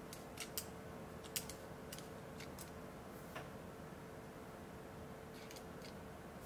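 Small, sharp clicks and light scrapes of a digital caliper's sliding jaw and a coin being handled as the jaws are closed on it, mostly in the first three seconds or so, with a few more later, over a faint steady hum.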